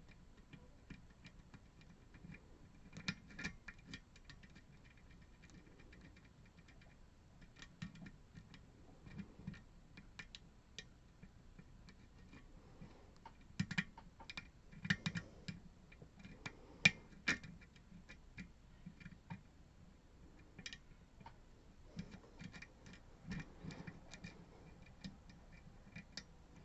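Faint, irregular metallic clicking and scraping of a lock pick working the pins of a Goal pin-tumbler lock under tension, with clusters of clicks as pins are lifted and set.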